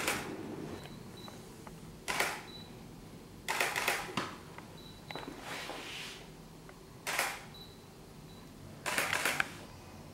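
DSLR camera shutter firing: single shots every second or two, then a quick run of several frames near the end.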